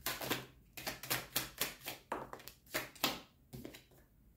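Tarot deck being shuffled overhand: a quick run of crisp card clicks, about four to five a second, that slows and mostly stops a little past three seconds in.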